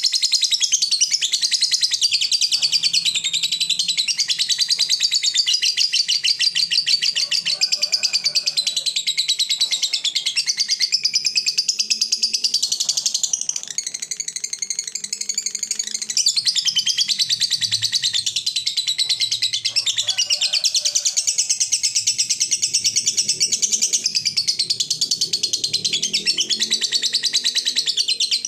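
Fischer's lovebird singing a long, unbroken ngekek: a high, very rapid chattering of fast ticks (ngetik) that runs on without pause, shifting up and down in pitch.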